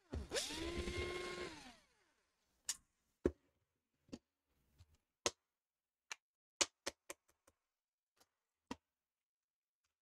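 Electric screwdriver spinning up, running for about a second and winding down while backing out the laptop's bottom-case screws. A dozen or so sharp, light clicks and taps follow, irregularly spaced.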